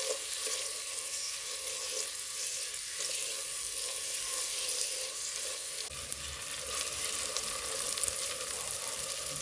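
Chopped onion frying in hot desi ghee: a steady sizzle with light crackles as the onion starts to brown.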